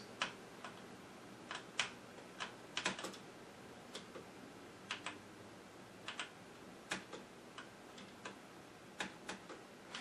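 Azio MGK L80 mechanical keyboard with tactile, non-clicky brown switches: scattered, irregular key clacks, about one or two a second and sometimes in quick pairs, as keys are pressed and released.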